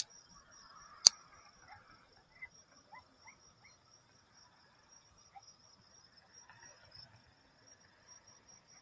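Crickets chirping steadily in a high, evenly pulsed trill, with two sharp clicks in the first second or so, the second one louder.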